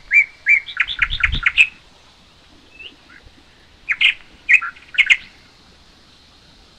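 Birds chirping in short, high calls: a quick run of chirps in the first second and a half, then a few more chirps about four seconds in.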